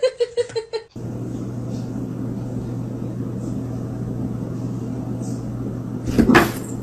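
A steady machine hum with a constant low tone, broken shortly before the end by a brief loud noisy sound.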